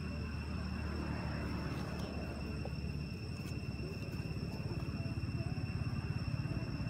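Outdoor background noise: a low, uneven rumble with a steady high-pitched drone over it. No clear monkey call stands out.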